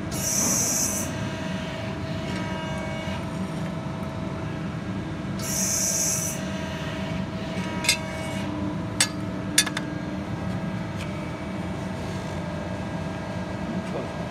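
110-ton CT8 CNC hydraulic press brake running with a steady hydraulic hum while sheet steel is bent. There are two brief high hisses about five seconds apart, and a few sharp metal clicks near the middle.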